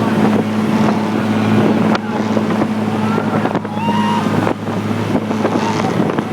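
Motorboat engine running with a steady low drone, with wind noise on the microphone and rushing water.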